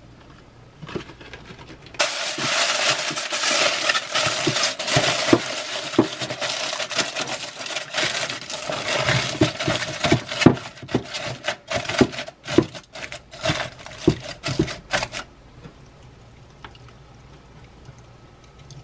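Sheet of silicone-coated non-stick aluminium foil being crinkled and pressed by hand into an air fryer basket. It is a loud, busy crackling full of sharp clicks that starts suddenly about two seconds in and stops a few seconds before the end.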